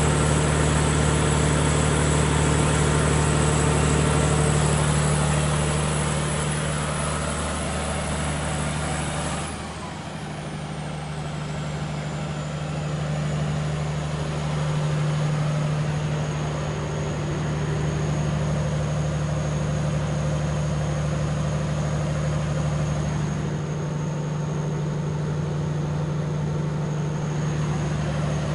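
Volvo Penta diesel generator set running steadily at rated speed, its controller reading 50 Hz output. About ten seconds in, a high whine slides lower and the sound briefly gets quieter.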